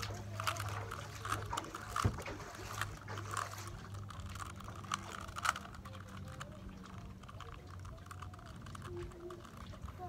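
A plastic 3x3 Rubik's cube being turned by hand: irregular clicks and clacks of the layers rotating, busiest in the first half, over a steady low hum.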